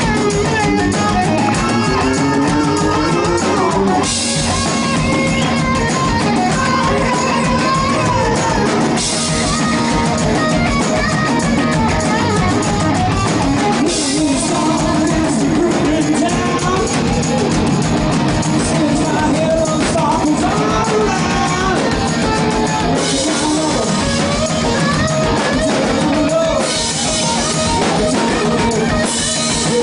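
Hard rock band playing live: electric guitar lead with bending notes over a drum kit with cymbal crashes, and singing at times.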